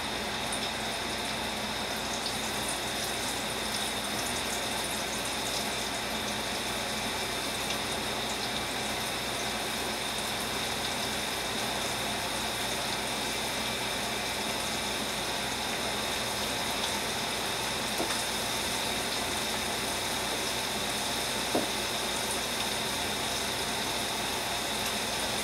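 Oat-and-flour-coated chicken pieces frying in hot oil in a pan: a steady sizzle with a couple of small pops.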